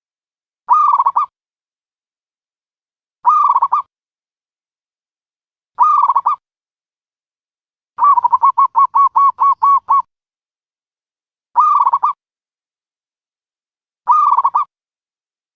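Dove calls used as a trapping lure: short cooing calls of about half a second, repeated every two and a half seconds, with a quick run of about ten notes, about five a second, a little past the middle.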